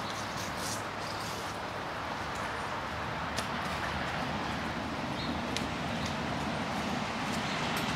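Steady outdoor background noise with a few faint sharp clicks.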